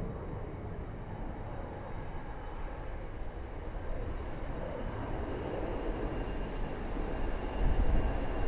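Jet airliner engine noise at a distance, a steady rumble that slowly grows louder toward the end.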